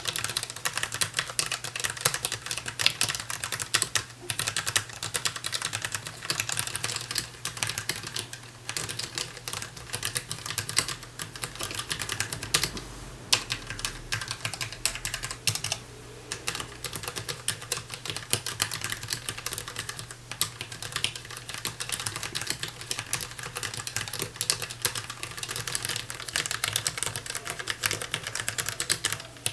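Rapid, continuous typing on a DAREU EK820 low-profile mechanical keyboard with Kailh low-profile red linear switches, broken by a few brief pauses.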